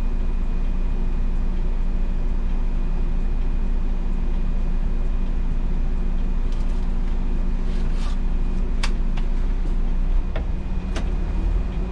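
MAN Lion's City NL283 city bus's six-cylinder diesel idling, heard from the driver's cab as a steady low hum with a faint high whine and a few sharp clicks. About ten seconds in the low rumble swells as the bus pulls away.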